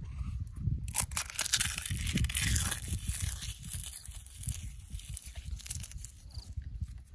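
Dry eggshells being crushed between fingers and sprinkled onto soil: a crisp crackling, thickest about one to three seconds in and thinning to scattered crackles after, over a steady low rumble.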